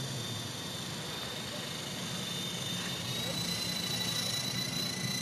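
Electric motors of a Double Horse 9104 radio-controlled helicopter, with a main and a tail rotor, whining steadily in flight. The whine rises slightly in pitch about three seconds in.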